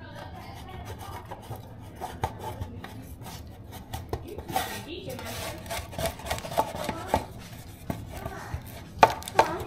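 Rubbing and light scraping inside a 9 by 5 loaf pan as it is greased, with small clicks of the pan and utensils. There are a couple of sharper knocks near the end.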